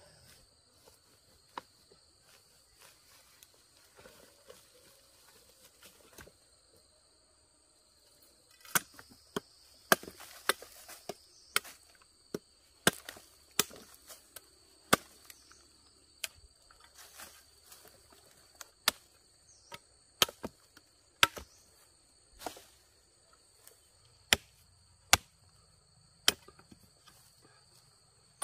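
Chopping: a run of sharp blows, roughly one a second, starting about nine seconds in, over a steady high-pitched insect drone.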